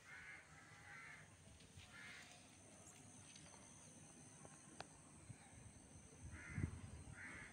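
Crows cawing faintly: two caws at the start, one about two seconds in, and two more near the end. A low thump comes just before the last caws.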